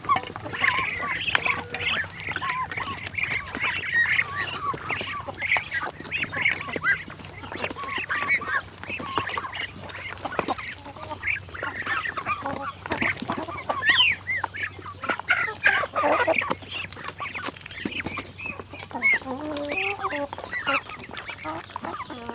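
A crowd of Muscovy ducks feeding together at a steel bowl of wet mash: many short, overlapping calls, with sharp clicks of bills knocking and dabbling in the feed.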